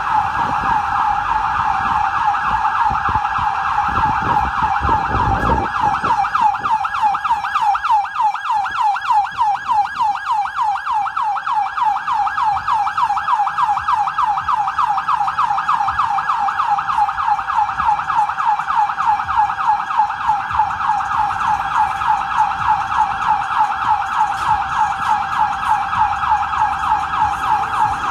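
Hatzolah ambulance's electronic siren on a fast yelp: rapid, evenly repeating up-and-down pitch sweeps, several a second. A low rumble sits under it for the first few seconds.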